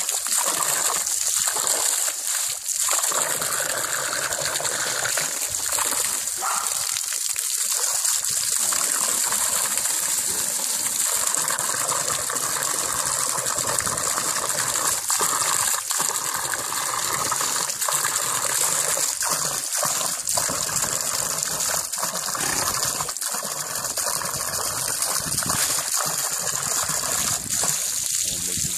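Garden hose spray nozzle running steadily: a constant rush of water jetting out and splashing against a miniature horse and the wire fence.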